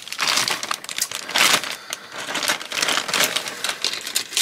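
Clear plastic bag of model-kit parts being opened and handled, crinkling in a series of short rustles.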